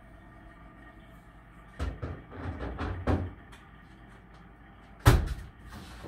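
HTP UTF 80 boiler with its fan off and only the water circulating: a faint steady hum. A few knocks and rattles come about two to three seconds in, and one loud sharp knock about five seconds in.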